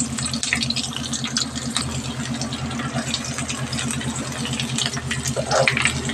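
A small engine running steadily in the background with a fast low chugging, about ten beats a second. Over it, fainter sizzling and ticking of onion and green chillies frying in oil in a metal kadai.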